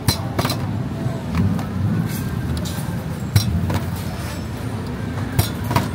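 Steady low rumble of street traffic, with scattered sharp clicks and knocks, about eight to ten of them, typical of utensils at a street-food stall.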